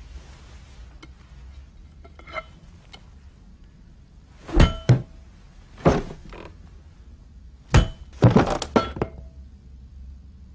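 A baseball bat striking in a series of hard blows: two quick hits about halfway in, another a second later, then a flurry of hits near the end. Several carry a brief ringing note.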